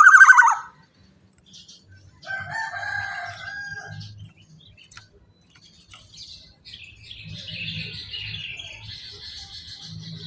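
Black-naped oriole (kepodang) calling: a loud burst of quick falling notes right at the start, a harsher call about two seconds in, then a long run of chattering notes from about six seconds on.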